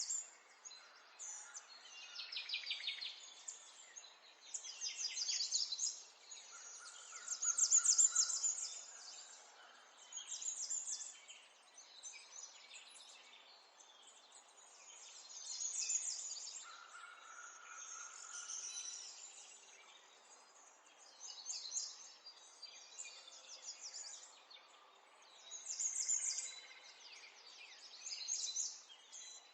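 Several songbirds singing, with quick trilled and chirping phrases coming every couple of seconds over a faint background hiss. A short steady lower note sounds twice.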